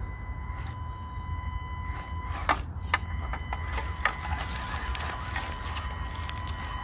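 A 1/18-scale Panda Hobby Tetra K1 RC crawler's small electric drivetrain running with a steady thin whine as it crawls over dry leaves and twigs. A few sharp cracks come between about two and a half and four seconds in.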